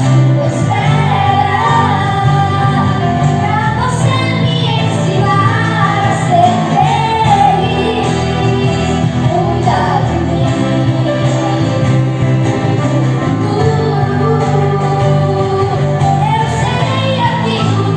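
A choir singing a song, with female voices prominent, over sustained low instrumental notes.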